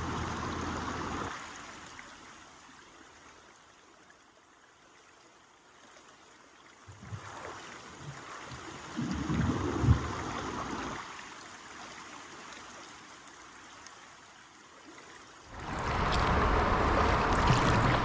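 Creek water rushing and gurgling around a kayak through a shallow riffle and small waterfall. There are a few low knocks about halfway through, and the rush of water turns loud for the last few seconds.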